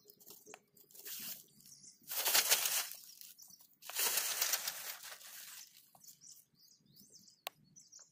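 Plastic tarp rustling and flapping as it is unrolled and shaken out, with two loud bursts about two and four seconds in and a sharp click near the end.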